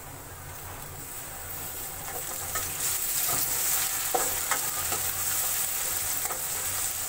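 Chopped tomatoes sizzling as they go into hot oil with frying onions in a metal kadhai, while a spatula stirs and scrapes the pan. The sizzle grows louder about two seconds in, with scattered scraping clicks.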